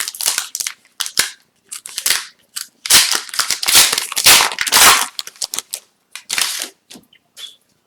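Foil hockey card pack wrapper being torn open and crumpled by hand, a run of loud crackling rustles that is densest about three to five seconds in.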